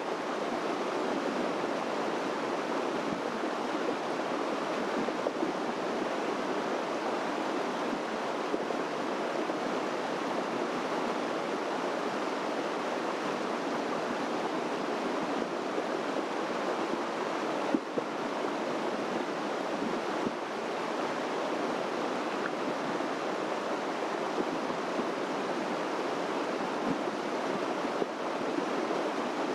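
Steady rush of a mountain stream flowing, an even, unbroken water noise, with a few faint clicks.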